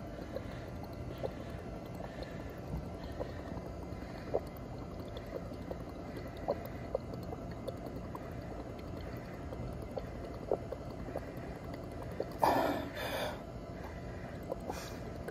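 Breath blown through a drinking straw into a flask of bromothymol blue indicator solution, bubbling with small, irregular pops. About twelve seconds in comes a louder rush of air and bubbling lasting about a second.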